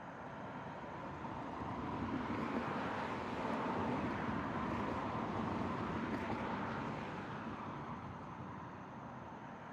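A road vehicle passing by: tyre and engine noise builds over the first couple of seconds, is loudest around the middle, and fades away near the end.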